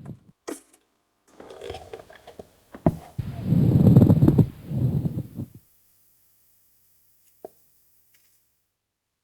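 Breath sounds heard through a stethoscope on the chest: a softer stretch, a sharp click, then a louder, low-pitched stretch, stopping about five and a half seconds in. After that it is silent apart from one faint click.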